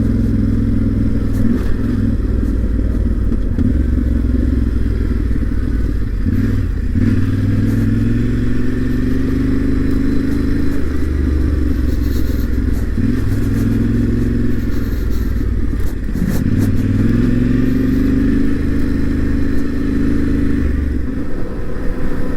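Yamaha Ténéré 700's parallel-twin engine running under way, its pitch dipping and climbing again about three times as the rider eases off and gets back on the throttle.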